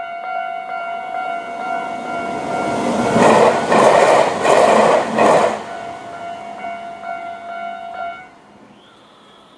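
Japanese level-crossing electronic alarm ringing steadily while a Tobu 500 series electric train passes over the crossing, its wheels clattering loudly in four swells over a few seconds. The alarm stops near the end.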